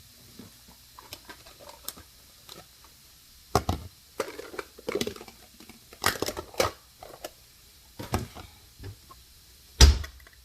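Kitchen handling sounds as a bowl and a can of soup are got out: scattered knocks, clicks and clatter, with one loud knock near the end.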